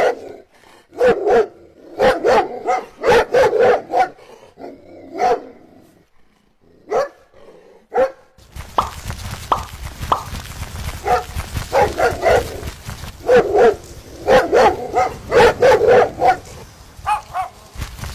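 A dog barking repeatedly in quick runs of several barks, with short pauses between the runs. About eight seconds in, a steady low background noise comes in beneath the barking.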